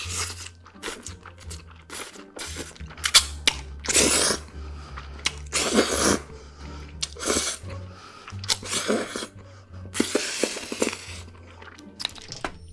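Close-miked eating: crunchy bites into a fried cheese ball, chewing, and the slurping-in of stretchy melted cheese strands, in separate loud bursts. Background music plays underneath.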